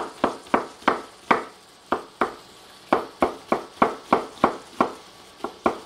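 Chef's knife slicing an onion on a wooden cutting board: a quick run of sharp chops, about three a second, with a couple of short pauses.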